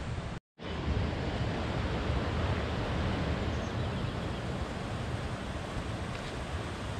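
Steady rushing of river water, with wind on the microphone adding a low rumble. The sound cuts out completely for a moment about half a second in.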